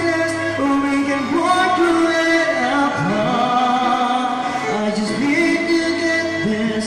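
A man singing karaoke into a microphone over a backing track.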